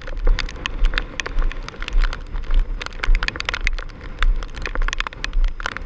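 Heavy hurricane rain striking the camera and its microphone at close range: a dense, irregular patter of sharp taps over a low, uneven rumble.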